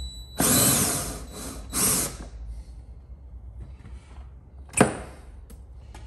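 Cordless power driver running in two short bursts, spinning out the last bolt of a door airbag module, followed by a single sharp click near the end.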